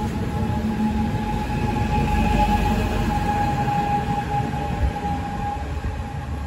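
Koleje Śląskie electric multiple unit pulling out of the platform: a steady electric whine over the rumble of its wheels on the rails, loudest about two seconds in.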